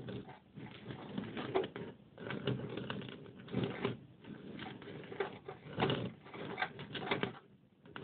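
Mice gnawing and scratching: dense, irregular scratchy clicking in clusters that come and go every second or so.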